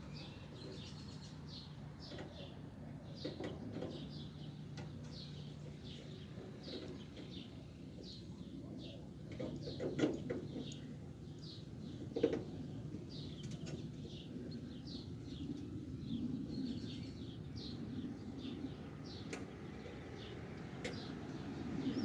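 Small birds chirping over and over, short falling calls. Two sharp knocks stand out, about ten and twelve seconds in.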